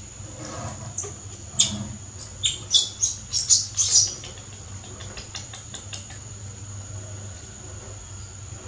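A young monkey squeaking: a quick run of about eight short, high-pitched squeaks, starting about one and a half seconds in and over within three seconds.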